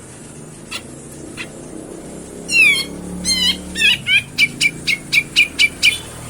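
Cucak jenggot (brown-cheeked bulbul) calls: a few loud sweeping notes from about two and a half seconds in, then a quick run of about eight sharp notes, roughly four a second, over a steady low hum. This is a lure call, played loud to provoke a reluctant captive cucak jenggot into singing.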